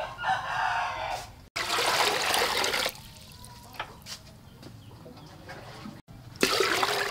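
Water poured from a plastic dipper into a metal cooking pot, in three separate splashing pours: one at the start, one about a second and a half in, and one near the end, with a quieter stretch between the last two.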